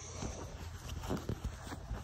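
Clothes being handled: fabric rustling with a few soft bumps and taps, along with handling noise on the phone.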